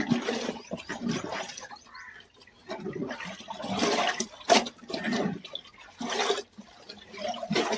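Water splashing and sloshing in irregular surges as a sack is washed and rinsed by hand.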